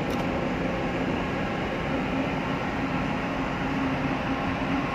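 Steady mechanical drone of idling engines and machinery, with a low steady hum and a few fainter steady tones above it.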